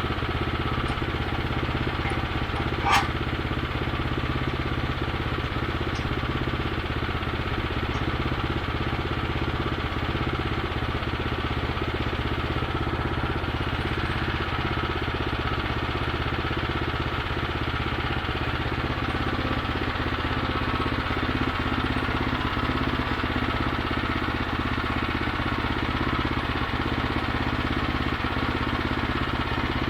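Gasoline engine of a bandsaw sawmill running steadily at an even speed, with a single sharp knock about three seconds in.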